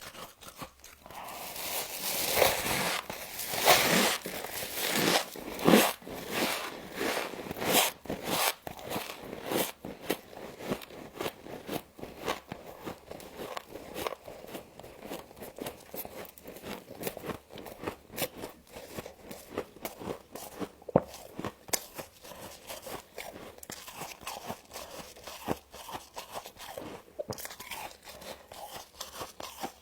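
Close-up crunching and chewing of frost scraped from a humidifier: loud, dense bites in the first few seconds, then a steady run of smaller crunches as it is chewed.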